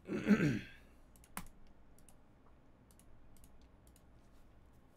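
A brief voice sound at the start, then a sharp click about a second and a half in, followed by scattered faint clicks of light typing on a computer keyboard.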